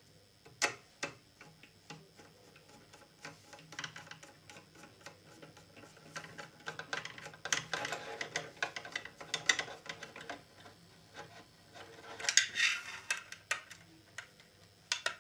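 Small screwdriver turning a screw in a metal mounting bracket: a run of light clicks and scrapes of metal on metal, busiest in the middle, with a scratchy rasp about twelve seconds in.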